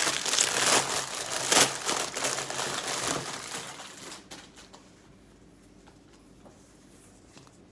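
Crinkly packaging wrapper being crumpled and torn open by hand, a dense crackling for about four seconds that then dies away, leaving a few faint taps.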